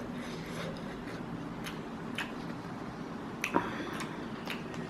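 A few soft, sharp clicks and ticks from a metal fork working in a paper instant-noodle cup while eating, over a steady low room hum.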